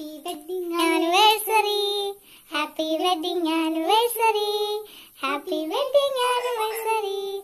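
A young girl singing alone, in three phrases of held notes with short breaks between them.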